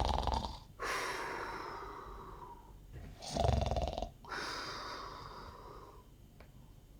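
A person imitating a bear's snoring: two snores, each a short rough rattle followed by a long airy breath that fades away.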